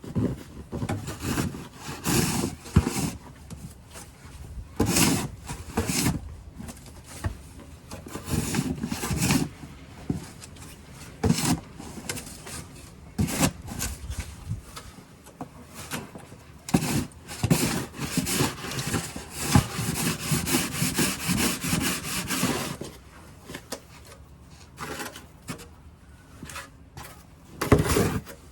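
Snow shovel scraping along the ground and pushing and scooping fresh snow, in repeated irregular strokes, with a quick run of short scrapes partway through.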